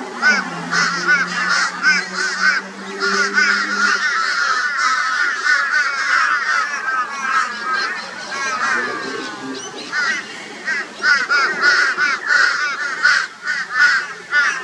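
A flock of crows giving loud, rapid, harsh raucous calls, many birds overlapping in a continuous din: mobbing alarm at a barn owl.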